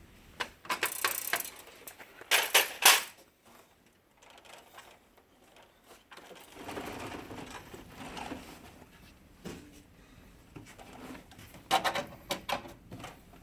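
Plastic side cover panels of an HP LaserJet Pro 400 printer being pressed and snapped into place: clusters of sharp plastic clicks and knocks near the start and again near the end, with quieter scraping and rubbing of plastic between.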